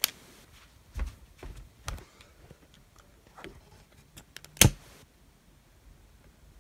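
Handling noises: a few scattered sharp clicks and dull knocks, the loudest click about four and a half seconds in.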